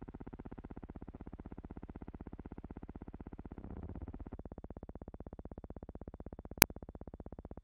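Steady, rapid pulsing buzz of film-transfer noise on a silent film's soundtrack, with one sharp click about two-thirds of the way through.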